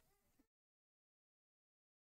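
Near silence: the sound track drops to dead digital silence about half a second in.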